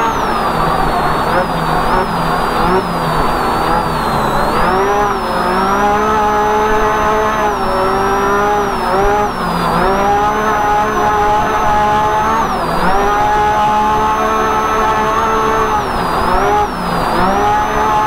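UTV engine running hard while driving, heard from inside the cab: its pitch holds steady, then dips briefly and climbs back about four times, with a thin high whine moving in step with the engine.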